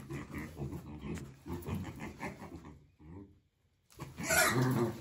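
Animal grunting and growling: a quick run of short low grunts, then, after a brief break, a louder, longer growl near the end.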